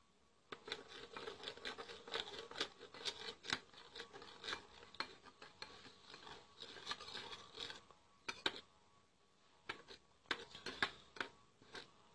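Faint, irregular scraping and light clicks of a spoon working turmeric powder in a small bowl, the start of a turmeric-and-yogurt paste.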